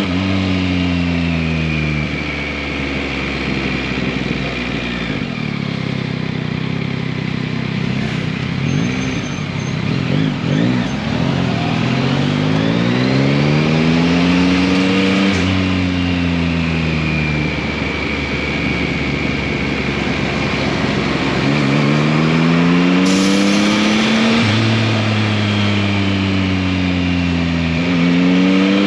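Yamaha MT-09's 890 cc inline-three engine under way. Its pitch climbs and drops back several times as it pulls through the gears, then falls away slowly as the bike slows, before it climbs again.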